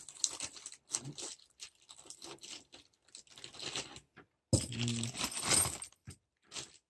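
Plastic mounting clips being handled and fitted onto a CPU cooler's heatsink, making irregular clicks, scrapes and crinkling, with a louder stretch of rustling about halfway through.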